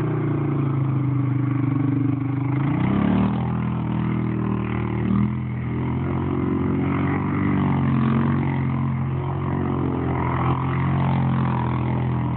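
Yamaha Big Bear 4x4 ATV's single-cylinder engine running hard under load as it spins donuts in snow, the revs dipping and climbing again a few times.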